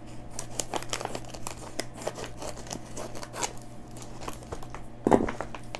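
Scissors cutting through a plastic courier mailer bag, the plastic crinkling as it is handled: a run of irregular snips and crackles, with a louder rustle about five seconds in.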